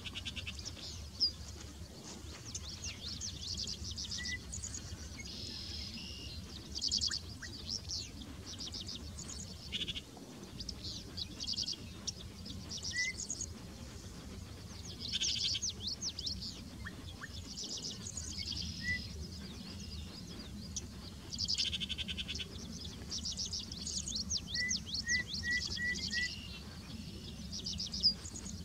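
Marsh chorus of high, rapidly pulsed trills, each about a second long and repeating every few seconds, with a few short high chirps and a steady low rumble underneath.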